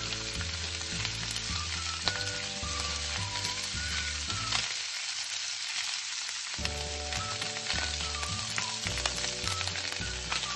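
Stuffed paneer slices sizzling in a little oil on a hot flat tawa as more pieces are set down, with light clicks as they touch the pan. Soft background music with a stepping bass line runs underneath and drops out briefly around the middle.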